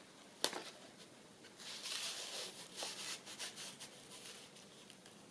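Paper card being slid into a paper pocket of a handmade journal: a light tap about half a second in, then a soft rustle of paper for a second or two.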